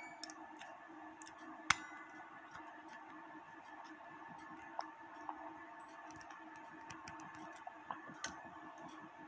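Faint, sparse small metallic clicks and taps from clock-movement parts being handled, with one sharper click about 1.7 s in. These are likely the worn click and ratchet wheel being worked after the click's wire spring was squeezed tighter. A faint steady hum runs underneath.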